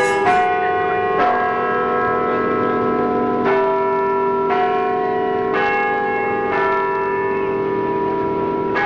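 Background music of sustained bell-like notes over a steady drone, a new chord sounding every second or two.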